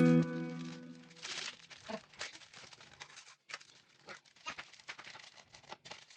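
A song fades out in the first second, then faint, irregular rustling, crinkling and clicking of things being handled.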